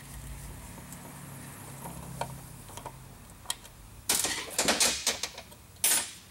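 A few light clicks of parts being handled on a removed VW MK4 gear shifter assembly. About four seconds in comes a cluster of loud scraping and rustling noises, with one more just before the end.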